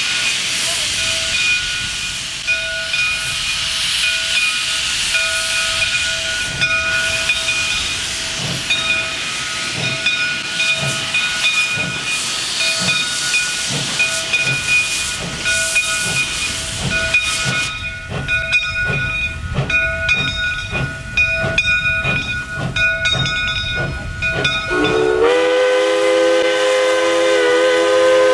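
A Baldwin 0-6-0 steam locomotive starting its train. Steam hisses loudly and the bell rings, then the exhaust chuffs set in at a steady beat as the engine gets moving. About 25 s in, the steam whistle sounds one long blast.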